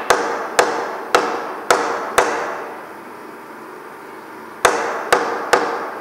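Hammer blows on a steel plate clamped in a milling-machine vice, seating it down onto the parallels: five blows about half a second apart, a pause of about two seconds, then three more, each ringing briefly.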